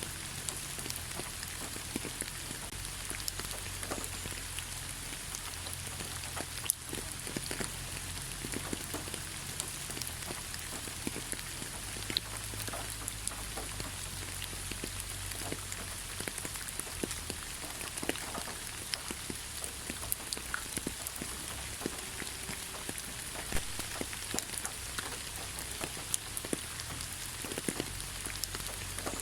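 Soft rain falling on leaves: a steady hiss with scattered individual drops striking, one sharper drop about seven seconds in.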